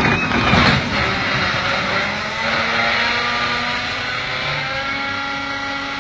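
CASE tracked excavator toppling off a lowboy truck's loading ramp: knocks and a crash in the first second, then its diesel engine keeps running in a steady hum with a high whine over it.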